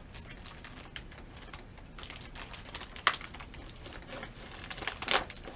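Clear plastic bag crinkling and crackling as it is handled and embroidery floss is slid into it, with a sharp crackle about three seconds in and a louder flurry near the end.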